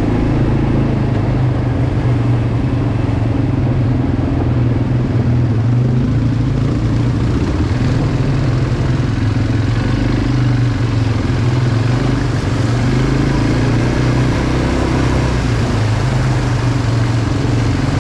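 Quad bike (ATV) engine running steadily under way, a continuous mid-pitched drone with little change in speed.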